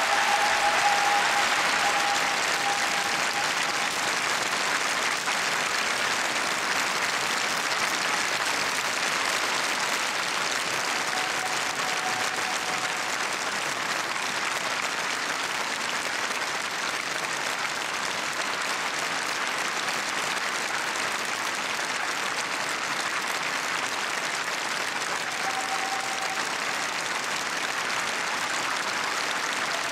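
Large audience applauding steadily, a little louder in the first couple of seconds.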